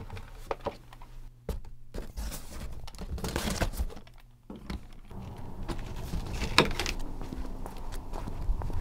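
Handling noise: a series of knocks, clicks and rustles as objects are packed into a cardboard box, then steadier background noise with footsteps on a sidewalk near the end.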